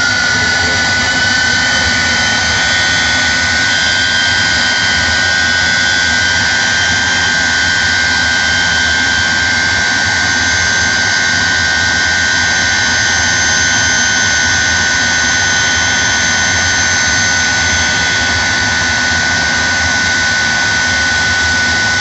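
Jet engines of a jet-powered semi truck running steadily at the start line: a loud, unchanging high whine over a constant rushing hiss.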